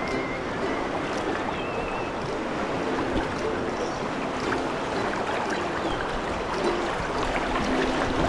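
Swollen river current rushing steadily: a high, fast-flowing river running full after days of rain.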